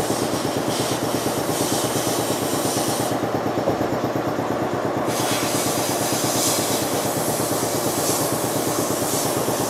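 Metal lathe running slowly in back gear during a single-point thread-cutting pass on a steel rocker stud: a steady, fast, even gear rattle with the scrape of the cutting tool on top. The scrape drops out for about two seconds about three seconds in.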